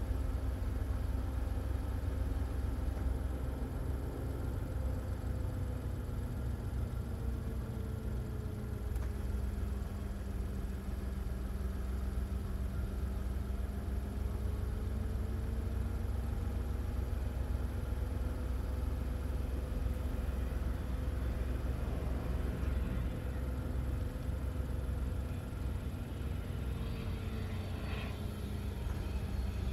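Cessna Citation business jet's turbofan engines on approach, heard from a distance: a steady low rumble with a hum that slowly wavers in pitch, and a higher turbine whine rising in over the last few seconds as the jet closes in.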